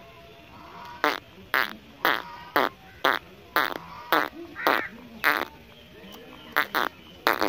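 Short, raspy animal calls repeated about twice a second, with a pause of about a second shortly after the middle.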